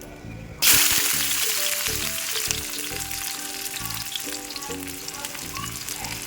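Food going into hot oil in a pan: a sudden loud sizzle about half a second in, settling into steady frying.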